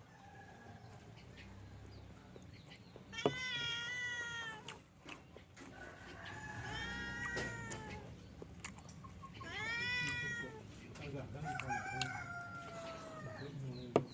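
Domestic cat meowing four times, long drawn-out meows that rise and then fall, with two sharp clicks, one near the start of the first meow and one at the very end.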